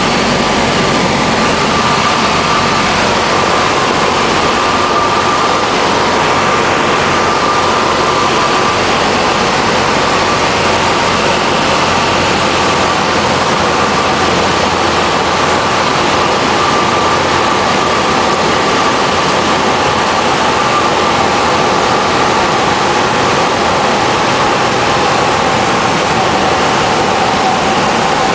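Cabin noise of a single-engine light aircraft: the piston engine and propeller drone loud and steady as the plane lines up on approach to the runway. A high tone in the drone slowly drops in pitch over the last part.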